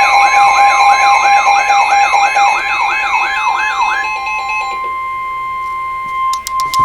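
Electronic emergency alert tone: a fast siren-like warble, rising and falling about three times a second, over several steady beeping tones. About four seconds in the warble stops and a single steady tone carries on, with a few sharp clicks near the end.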